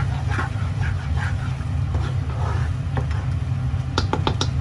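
A plastic spatula stirring a chili garlic sauce in a pan over a steady low hum, with a quick run of sharp clicks about four seconds in as the spatula knocks against the pan.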